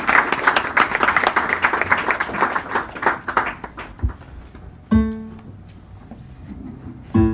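Audience applause dying away over the first three or four seconds. Then a low thump, followed by two single instrument notes a couple of seconds apart, each ringing out and fading.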